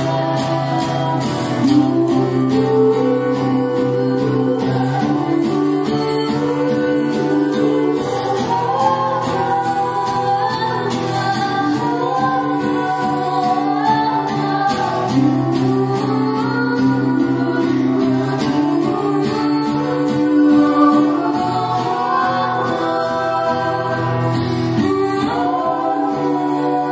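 Live acoustic performance: voices singing together in close harmony over a steadily picked acoustic guitar.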